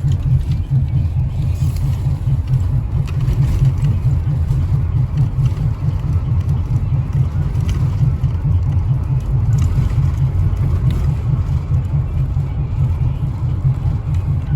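School bus engine and drivetrain running with a steady low rumble, heard from inside the bus, with a few faint rattles. The driver calls it an "insufficient" bus, one he believes is faulty.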